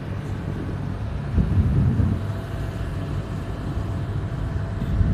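Distant aircraft engine droning steadily overhead as a low rumble, swelling louder about a second and a half in.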